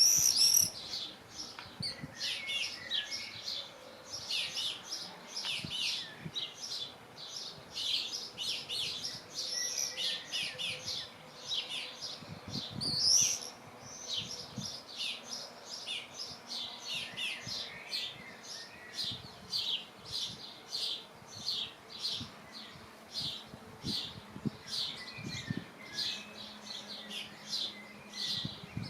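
Common swifts (Apus apus) screaming at their nest box: a long run of shrill, high calls in quick succession. The calls are loudest at the very start and again about 13 seconds in.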